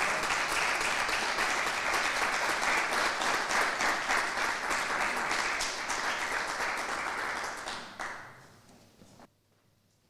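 Applause from a small seated audience, the clapping dying away about eight seconds in, followed by a moment of near silence.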